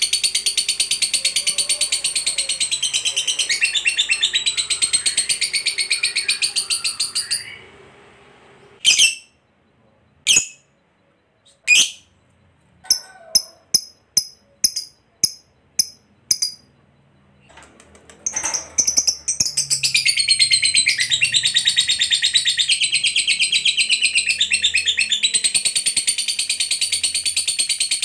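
Lovebird's long rapid chattering song (ngekek panjang), a high, fast, unbroken chatter that stops about seven seconds in. After a pause broken by a few sharp single sounds and a quick run of short clicks, the long chatter starts again about 19 seconds in.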